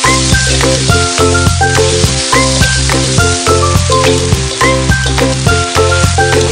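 Seafood and sliced meat sizzling loudly in hot oil in a wok over high heat, with background music with a steady beat over it.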